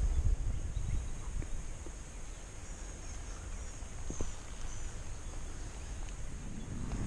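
Outdoor field ambience: low wind rumble on the microphone, easing after the first couple of seconds, under a steady high thin drone, with a few faint clicks.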